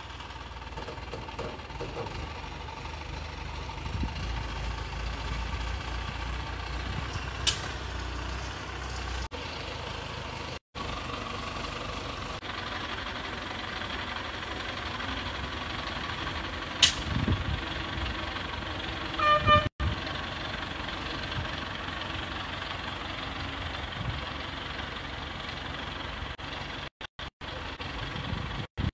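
Mobile crane's engine running with a steady low rumble while a tree's root ball hangs from its hook. There are two sharp clicks, and a short horn toot about nineteen seconds in.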